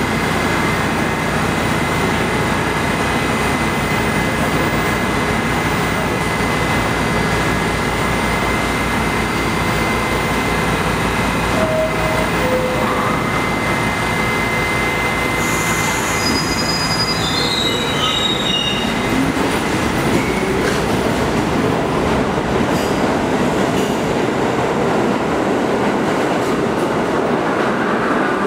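New York City subway train on the G line standing at the platform and then pulling out. A loud steady rumble and hiss runs throughout, with short high squeals about halfway. A motor whine rises in pitch over several seconds as the train gathers speed.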